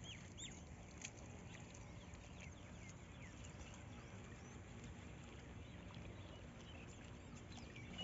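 Faint open-air ambience: scattered short high bird chirps over a low steady background noise, the chirps bunched near the start and again near the end.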